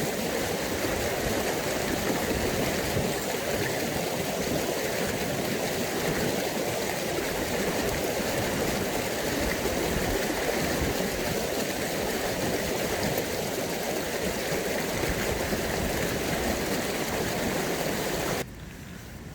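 Steady rain falling, a dense even hiss with no letup, which cuts off abruptly near the end.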